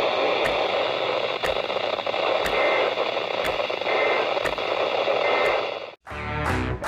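Radio static: a steady hiss with a faint click about once a second and a few short high beeps. It cuts off suddenly about six seconds in, and plucked guitar music starts.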